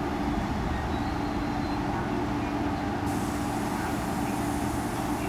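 Electric commuter train standing at a platform, its equipment giving a steady hum with one clear steady tone; a high hiss joins about three seconds in.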